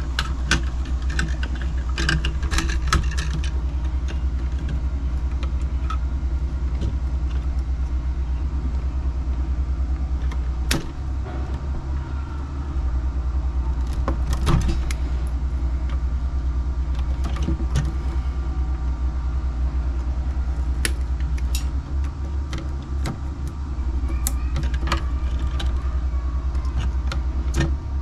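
Scattered small clicks and rattles of hand tools and electrical wire being handled: a wire stripper stripping insulation and wires pushed into Wago lever connectors. Under it runs a steady low rumble that drops out twice for a couple of seconds.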